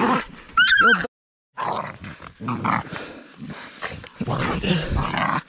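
Young pit bull puppies fighting: rough, continuous growling, with a brief high wavering yelp about half a second in. The sound cuts out for half a second just after the yelp.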